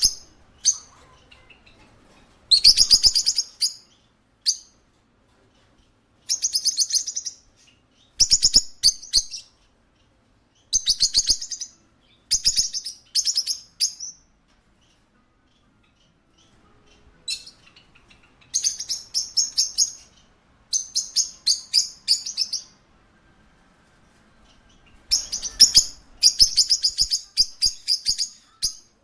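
A parakeet chirping in quick, high rattling bursts about a second long, with short pauses between them and a longer lull near the middle.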